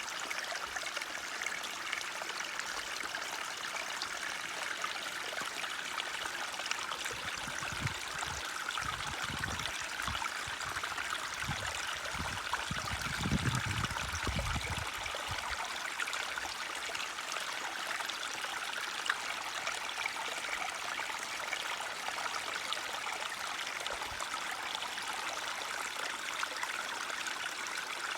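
Small forest stream trickling and babbling steadily. A low rumble rises and falls from about a quarter of the way in to about halfway through.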